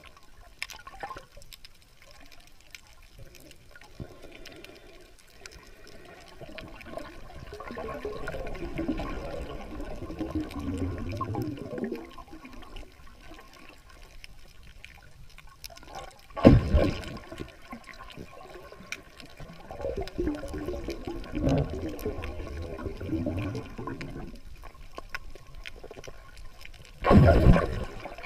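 Muffled underwater water noise picked up by a submerged camera, sloshing and gurgling in slow swells. There are two short, loud surges of water noise, one about halfway through and one near the end.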